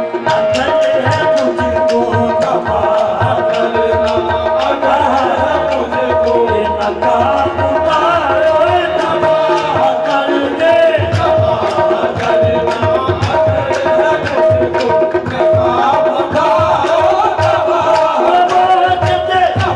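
Qawwali music: tabla drumming under harmonium held notes, with a singer's wavering melodic line without clear words. The tabla's bass strokes grow fuller about halfway through.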